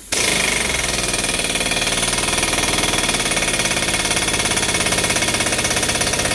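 Pneumatic impact wrench hammering rapidly and continuously as it drives a Lisle 34400 exhaust pipe expander, stretching the end of a thick-walled steel exhaust pipe. It starts abruptly.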